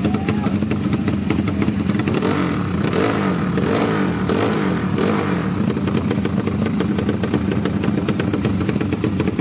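Drag-race motorcycle engines running at the start line with a rapid, steady pulse; from about two to five seconds in they are revved up and down.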